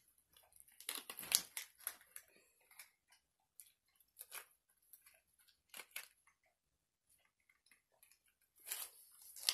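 Sticky slime being squeezed and worked by hand, giving faint, irregular crackles and clicks, busiest about a second in and again near the end.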